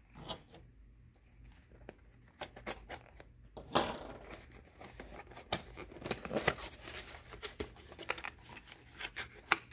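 A small cardboard box being opened by hand: the sealing sticker tears and the flaps are pulled open, with cardboard scraping and rustling and scattered sharp clicks, busier from about four seconds in.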